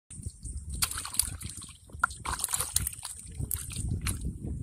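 Muddy water sloshing and splashing as a steel bowl is dipped into a small mud pit and scooped out, in irregular splashes.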